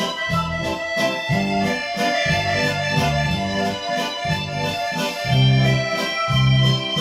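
Background music: held keyboard chords over a repeating bass line, with notes changing about once a second.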